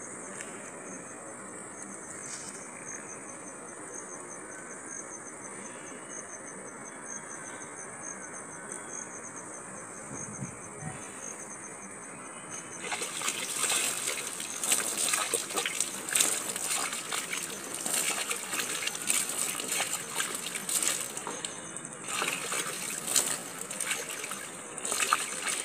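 Water splashing and gushing over a person washing during a bath, starting suddenly about halfway and going on as an irregular crackling splash. Before that there is only a steady quiet hiss with a thin high-pitched whine.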